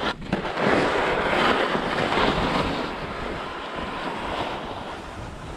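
Skis sliding and scraping over snow on a fast downhill run, with wind rushing and buffeting the microphone. It grows louder about half a second in and eases a little in the second half.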